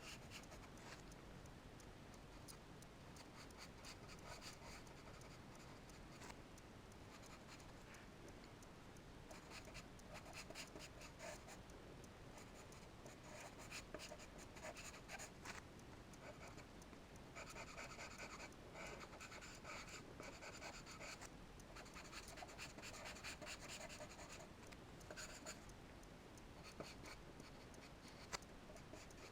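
Charcoal scratching on paper: faint, rapid back-and-forth strokes of drawing, coming in quicker runs in the second half.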